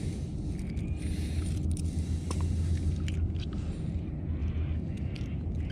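Low steady rumble on a chest-mounted camera's microphone, with a few light metallic clicks from fishing pliers being handled.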